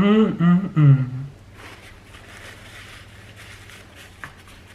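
A man's voice making a drawn-out, wavering vocal sound with no words over about the first second, while eating a chicken sandwich. After that there are only faint small noises and one light click near the end.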